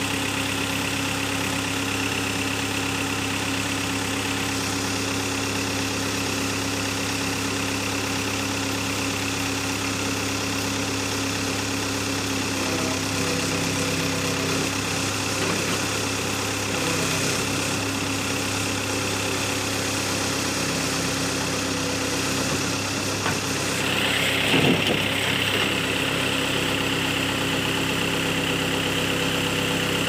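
Engine of an old tractor-based backhoe loader idling steadily. About 24 s in, the engine takes on load with a higher whine, and a few knocks sound as the backhoe arm is raised and swung.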